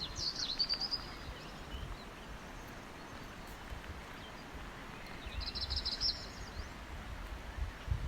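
Songbird calls over a steady outdoor background: a short sliding chirp near the start and a quick high trill about five seconds in, with faint low rumbling beneath.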